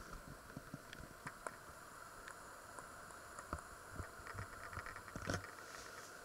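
Quiet handling noise: scattered small clicks and knocks, with a quick run of ticks and a louder knock a little past five seconds, over a faint steady hum.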